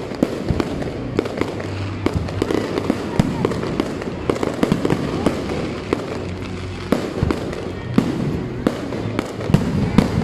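Aerial fireworks display: a dense, unbroken run of sharp bangs and crackling bursts, several a second.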